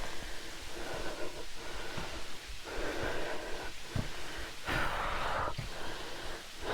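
Heavy, laboured breathing of a person climbing a steep mountain trail, a noisy breath every second or two, the loudest a little under five seconds in.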